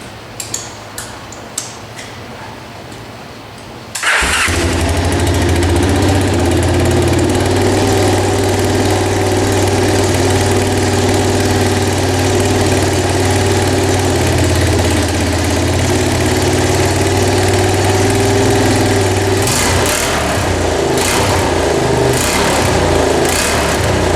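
1985 Honda ATC250SX three-wheeler's single-cylinder four-stroke engine starting about four seconds in and idling steadily, then revving unevenly in short blips near the end. A few sharp clicks come before it starts.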